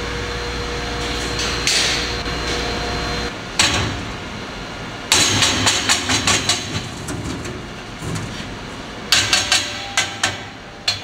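Sand-casting flask shaken out over a steel-barred shakeout grate: a run of sharp metal knocks and bangs as the flask is struck against the grate to free the sand and the casting drops out. A steady shop hum fills the first three seconds before the knocks begin.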